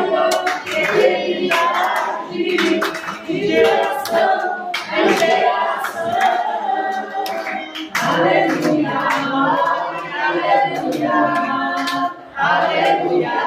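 A church congregation singing a worship song together, with hand clapping running through it.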